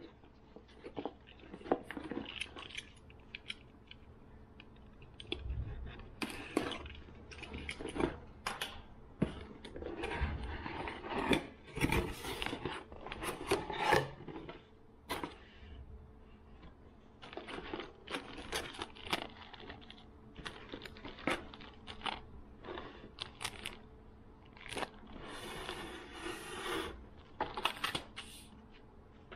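A cardboard mailer box being opened by hand and lure packets in plastic bags handled: irregular rustling and crinkling with scrapes and sharp clicks as things are set down on a stone countertop.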